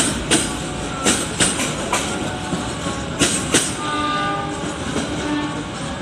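Passenger train coaches rolling past at low speed as the train pulls out, their wheels clacking over rail joints in quick pairs, one pair per bogie, over a steady rolling rumble. A faint drawn-out tone sounds for about a second near the end.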